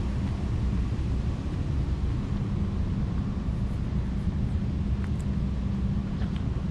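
Steady low outdoor rumble with a constant low hum under it, with a couple of faint high chirps about five and six seconds in.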